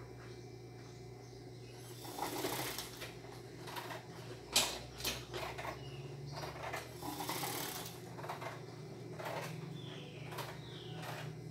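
Industrial sewing machine humming steadily, stitching a bias binding in short, slow runs, with fabric rustling and clicking as it is guided under the foot.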